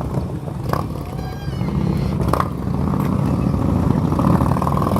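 Steady wind buffeting and rolling noise from riding a bicycle, with a few light clicks and a brief high wavering squeak about a second in.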